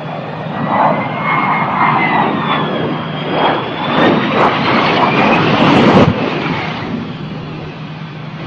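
Aircraft engines passing close by, a loud rush with a whine that slides in pitch, growing to a peak about six seconds in and then fading.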